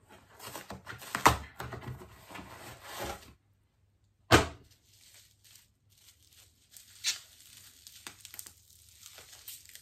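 Parcel packaging being torn open and rustled by hand, with a sharp tearing snap about a second in. A single loud knock a little after four seconds, then fainter crinkling of plastic wrapping near the end.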